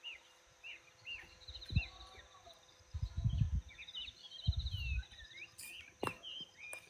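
Small birds calling with short, repeated falling chirps over a pulsing insect buzz. Two brief low rumbles about three and four and a half seconds in, and a couple of sharp clicks.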